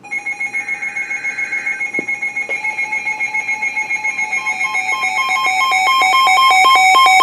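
Weather alert radio's alarm going off for a flash flood warning: rapid electronic beeping, about five pulses a second, on two alternating pitches, growing steadily louder.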